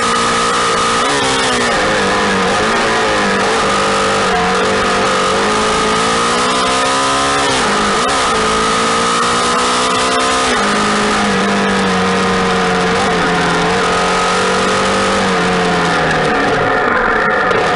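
Police motorcycle engine under hard riding, its pitch climbing and dropping back again and again with throttle and gear changes. Wind noise hisses on the mic, and a steady high whine runs underneath.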